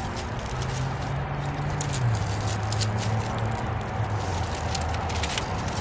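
Leafy branches and twigs rustling and crackling as they are gripped and bound together by hand, with irregular close clicks. A low steady hum runs underneath, dropping slightly in pitch about two seconds in.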